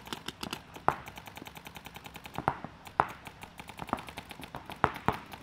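Paintball markers firing fast strings of shots, about ten a second, with several louder sharp cracks standing out among them.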